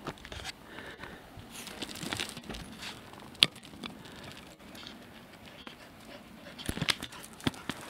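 Border collies panting as they run back up the path near the end, over irregular crunching footsteps on a gravel path. One sharp click about halfway through is the loudest sound.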